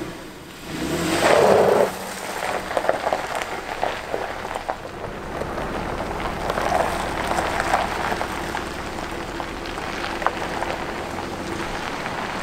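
Jeep Wrangler driving slowly on gravel: its tyres crunch and crackle over the loose stones while the engine runs. The loudest surge comes about a second in.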